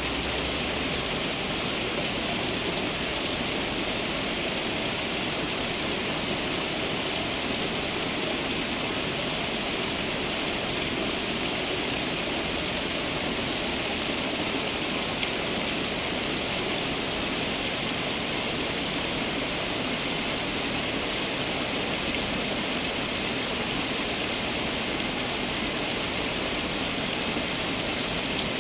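Water from a garden fountain falling and splashing in a steady, unbroken rush.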